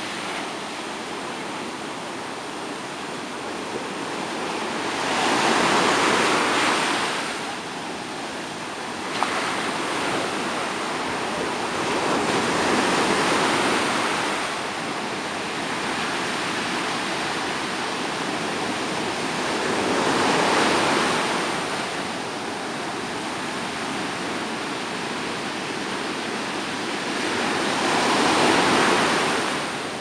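Stormy sea surf: waves breaking over a constant rush of water, swelling loudly four times, about every seven or eight seconds.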